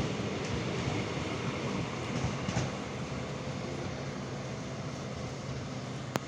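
Diesel-hauled passenger train running past: a steady rumble of wheels on the track that eases slightly about halfway through, with a sharp click near the end.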